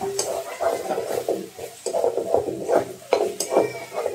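Metal spatula stirring and scraping a thick spice paste frying in a steel kadai, with several sharp knocks of the spatula against the pan.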